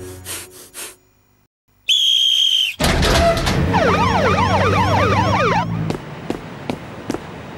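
A police whistle blown in one long, shrill blast about two seconds in. Then several police sirens wail over one another, with a music score beneath, until about two seconds before the end.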